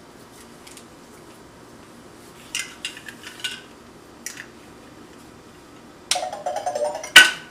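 Hard plastic toy building pieces clicking and clattering as they are handled: a few clicks about two and a half seconds in, then a louder run of clattering near the end that finishes with one sharp knock.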